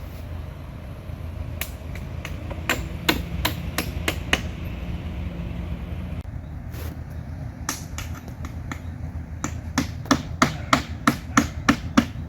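Hammer striking nails during vinyl siding installation: a few scattered blows in the first half, then a steady run of strikes about two to three a second near the end, over a low steady background rumble.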